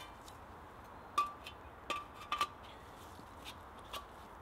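Light metallic clinks: a handful of sharp taps, each with a short ring, loudest a little over a second in and twice around two seconds in, from thin metal camping-stove parts knocking together as they are handled.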